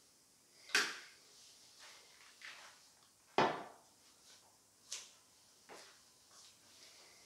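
A plastic water bottle being handled and set down: two sharp knocks, about a second in and midway, louder than the rest, then lighter taps and footsteps on a tiled floor.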